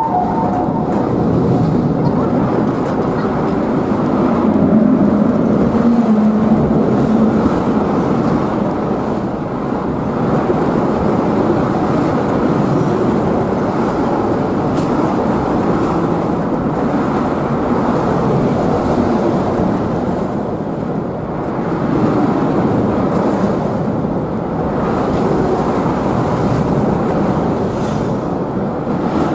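Steady rumbling noise of a destroyer and an escorting tugboat under way, mixed with water and wind on the microphone.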